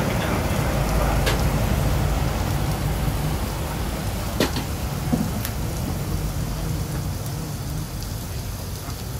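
Kebab meat, onions and a tortilla wrap sizzling on a hot flat-top griddle, a steady hiss over a low hum, with a few sharp clicks in the middle.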